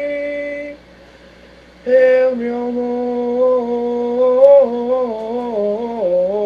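A voice singing without accompaniment: one held note, a breath of about a second, then long sustained notes that step slowly down in pitch.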